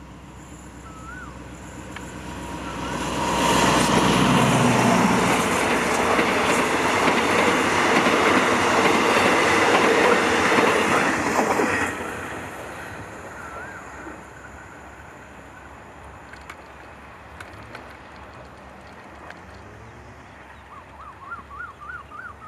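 A diesel-hauled train passes on the rails. It builds up from about two seconds in, is loud from about three and a half seconds to twelve seconds, then falls away quickly.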